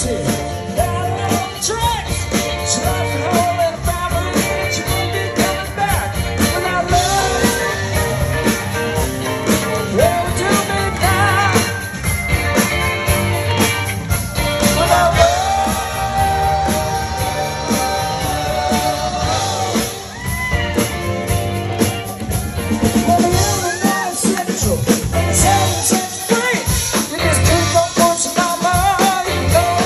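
Live rock band playing at full volume: drum kit, congas, electric guitars and singing.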